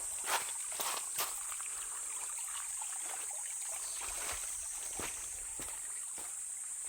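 Running stream water with a steady, high-pitched insect buzz, and a few sharp footstep clicks in the first second or so.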